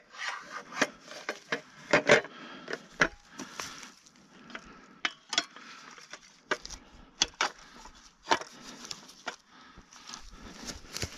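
Trail camera and its mounting bracket being handled and fitted against a tree trunk: irregular sharp clicks and knocks with rubbing and rustling.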